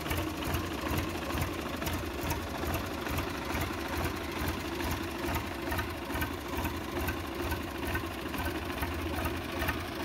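Swaraj 855 FE tractor's three-cylinder diesel engine idling steadily, with an even, rapid diesel clatter.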